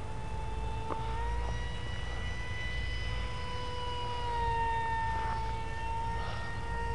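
Brushless electric motor and propeller of a mini Swift RC flying wing, heard from the ground as a steady high whine overhead. The pitch rises slightly about a second in and drops a little about four and a half seconds in.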